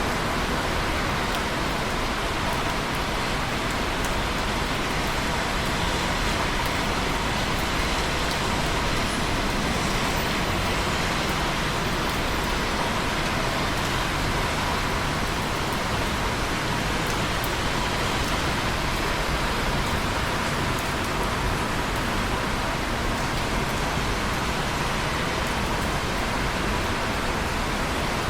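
Steady rain falling, an even hiss of many drops with faint scattered ticks.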